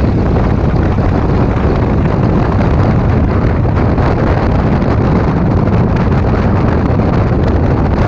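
Wind buffeting the microphone of a camera on a riding maxi scooter, a steady rush that covers the scooter's engine and tyre noise at about 40 to 60 km/h.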